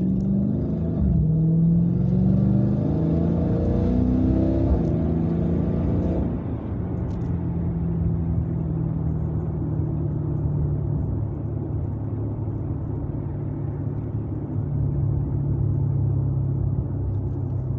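Dodge Challenger's 392 Hemi 6.4-litre V8 accelerating, heard from inside the cabin: the revs climb and drop back several times with upshifts over the first six seconds, then settle into a steady cruise.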